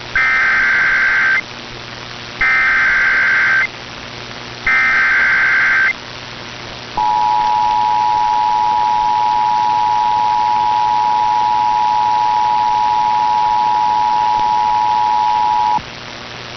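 Emergency Alert System activation: three SAME header bursts of digital data tones, about a second each, then the EAS two-tone attention signal (853 and 960 Hz) held steady for about nine seconds before it cuts off. It signals a National Weather Service severe thunderstorm warning.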